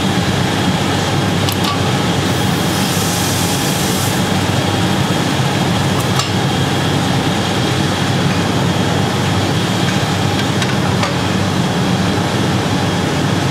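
Steady, loud industrial roar of glassworks machinery, with a short hiss a few seconds in and a few faint clicks.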